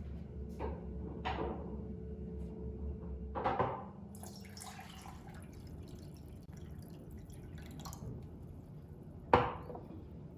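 Household handling noises in a small room: a few knocks and clinks, a hiss for a few seconds in the middle, and a sharp knock near the end.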